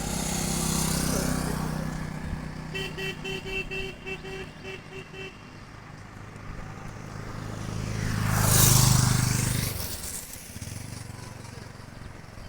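Road traffic: an engine running close by, then a horn sounding in a quick string of short beeps, about four a second, for a couple of seconds. Then a vehicle passes close, its noise rising and falling away.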